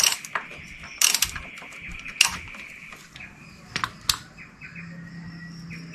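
Socket ratchet clicking, with a few sharp metallic knocks, as a 15 mm nut is worked loose on a motorcycle footrest-plate bolt. Birds chirp near the end.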